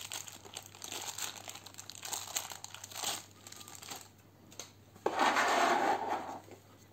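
Thin plastic packaging bag crinkling and rustling as it is handled and opened. About five seconds in there is a louder rustle lasting over a second.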